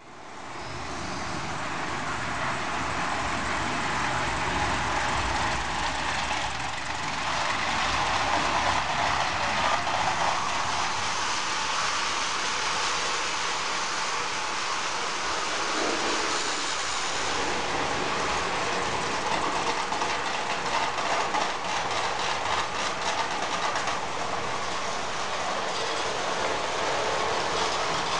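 Vintage tinplate 0 gauge toy train running on tinplate track: a steady metallic rattle of wheels and coaches, with rapid clicking in the second half.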